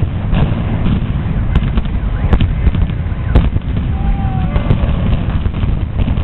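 Building implosion: a rapid, irregular string of sharp cracks from explosive demolition charges over a heavy, continuous rumble.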